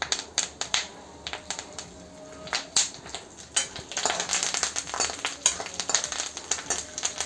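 Peanuts roasting in hot ghee in a kadhai, crackling with scattered sharp pops, as the peanuts begin to crack open. Fresh curry leaves have just gone in, and from about four seconds in the crackling thickens into a dense sizzle while a steel spoon stirs through the pan.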